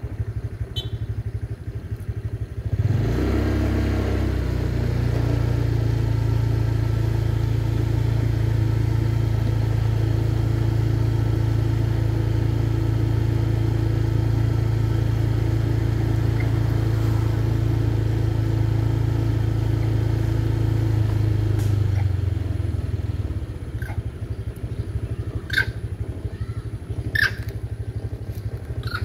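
Motorcycle engine running steadily under way, pulling up about three seconds in and easing off to a lower rumble near the end as it slows. A few short, sharp high chirps sound in the last few seconds.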